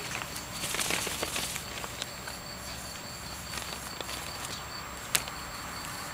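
Puppies scrambling on grass and brushing against a fabric play tunnel: scattered soft rustles and small ticks, with one sharp click about five seconds in. A faint steady high tone runs underneath.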